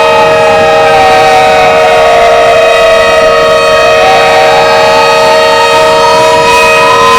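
Fan-made Emergency Alert System alarm, very loud: several steady alarm tones held together under a siren-like wail. The wail slowly falls in pitch for about three and a half seconds, then rises again.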